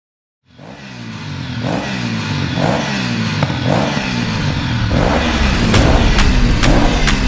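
Hero Pleasure motor scooter's small single-cylinder engine running and accelerating under the load of four riders. It starts abruptly about half a second in and grows louder as the scooter comes close.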